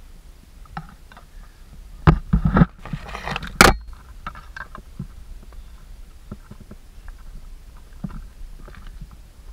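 Footsteps crunching and scraping over loose stony rubble on a steep trail, with irregular clatters of stones underfoot; a loud cluster of crunching steps about two to four seconds in, then lighter scattered steps.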